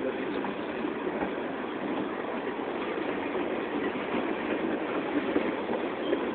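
A train rolling past: a steady rumble of wheels on the rails, with scattered small clicks.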